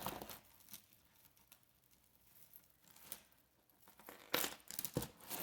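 Costume jewelry and its bag being handled: scattered light clicks and a crinkling rustle, busier near the end.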